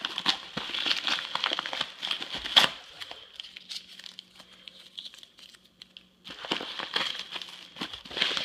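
An envelope being torn open and its packaging crinkled and handled, with a sharp crack about two and a half seconds in. The crinkling dies down in the middle for about three seconds, then starts again.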